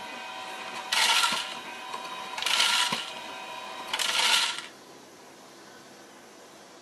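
Automatic pet feeder dispensing dry kibble: its motor hums steadily while three rushes of kibble pour into the plastic tray, about a second and a half apart, then it stops.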